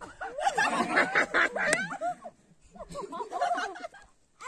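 A group of people laughing and chattering in two bursts of overlapping voices.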